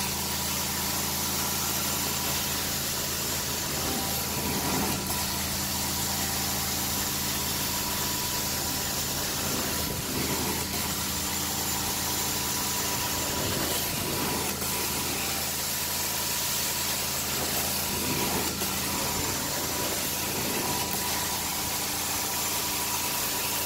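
Carpet-cleaning extraction wand sucking air and water out of the carpet, over the steady engine-like drone of the extraction machine's vacuum. A hiss swells a little every few seconds as the wand is drawn through each stroke.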